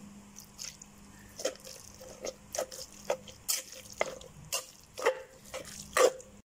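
Metal spoon mixing and mashing wet catfish paste in a mortar after water has been added: wet squelching with a stroke about twice a second, the spoon knocking the mortar, loudest near the end.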